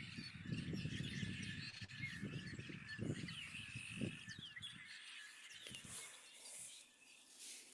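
Birds chirping and calling in short, quick notes, over a low rumble that fades out about five seconds in.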